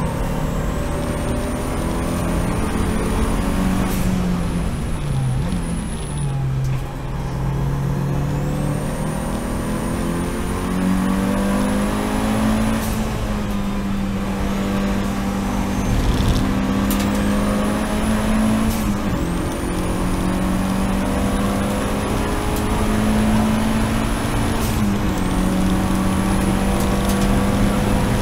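Seat Leon race car engine under hard load, heard from inside the car. The pitch falls about five seconds in, then climbs and holds high, with quick drops near the end, as the car shifts gear and lifts for corners.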